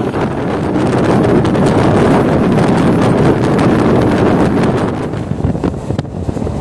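Electric local train (EMU) running at about 90 km/h, heard at its open doorway: wind buffeting the microphone over a steady rush of wheel and rail noise with frequent clicks. The noise drops somewhat about five seconds in.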